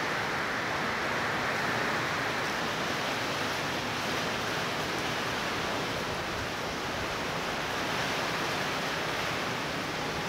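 Strong storm wind blowing steadily with rain, an even rushing noise with no breaks.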